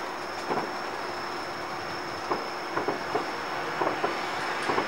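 Distant fireworks: a string of irregular sharp pops, coming thicker from about halfway on, over a steady background hiss with a thin high tone.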